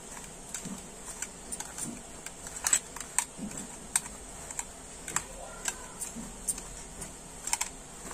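A spoon stirring soaked soya chunks with spices in a bowl, clicking and knocking against the bowl at an irregular pace, a few times a second.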